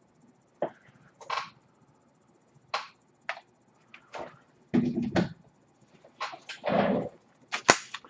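Scattered handling noises: short rustles and knocks, with fuller rustling a little past the middle and a sharp click near the end, as a paper instruction sheet is picked up and unfolded.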